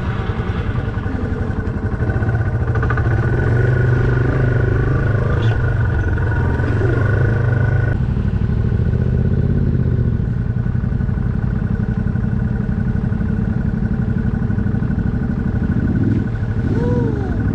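Off-road motorcycle engines running steadily on a dirt trail. The engine note changes abruptly about eight seconds in, and near the end a motorcycle revs up and back down as it rides close past.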